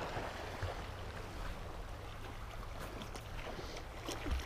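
Quiet river ambience: soft, even noise of moving water, with a low rumble of wind on the microphone and a few faint ticks.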